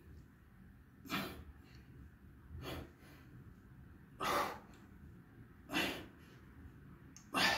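A man breathing out hard through his nose and mouth in time with dumbbell side-bend repetitions. Five short puffs come about every second and a half, the breathing of someone working hard.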